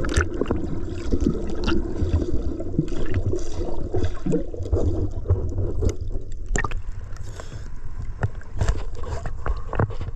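Seawater sloshing and splashing close by, with many small sharp clicks and knocks throughout.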